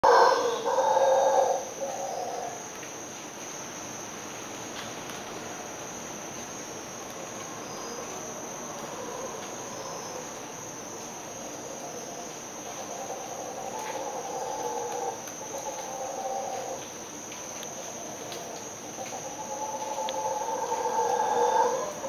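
Mantled howler monkeys roaring in long, drawn-out bouts, loudest at the very start and building again over the last few seconds, over a steady high-pitched insect drone.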